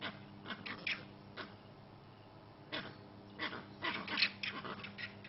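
Baby vervet monkey giving short, high-pitched distress squeals in several clusters while held by a young leopard, over a steady low hum.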